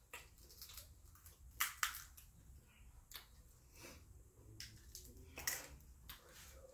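Eating a seafood boil: wet clicks and crackles of boiled seafood shells being peeled by hand, mixed with chewing and lip smacking. Two louder cracks come close together about one and a half seconds in, and another about five and a half seconds in.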